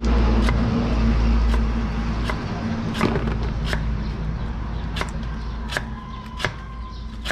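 Knife chopping a root on a round wooden chopping block: about eight unevenly spaced knocks, over a low rumble that fades after about two seconds.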